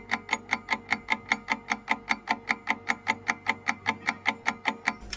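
Countdown-timer sound effect of clock ticks, quick and even at about six a second.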